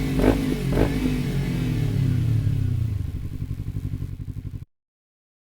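Kawasaki Ninja 300's parallel-twin engine running through its exhaust, with two sharp cracks in the first second, then the revs dropping in a steady falling pitch until the sound cuts off abruptly.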